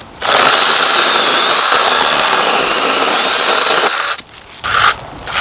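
ORBLON 6-inch cordless brushless mini chainsaw cutting through a tree limb, its electric motor running with a faint high whine. It cuts for nearly four seconds, stops, gives a couple of short bursts, then starts cutting again near the end.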